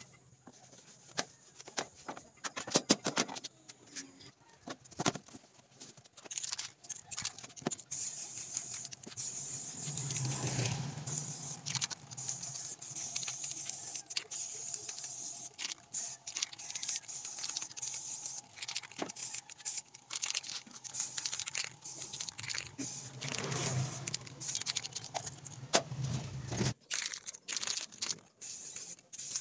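Aerosol spray paint can hissing in repeated bursts as black paint goes onto a plywood speaker-box panel, after a few sharp rattling clicks at the start.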